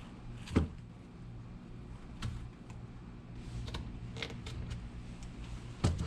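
Scattered knocks and clicks from work on a shoe and tools being handled, five or so over a few seconds, the sharpest about half a second in and near the end, over a steady low hum.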